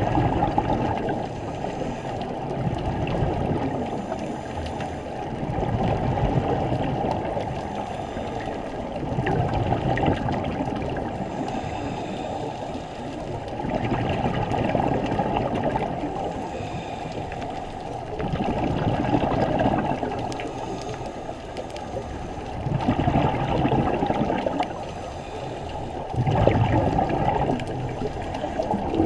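Scuba diver breathing underwater through a regulator: each exhalation is a burst of bubbling that swells and fades, repeating about every three to four seconds.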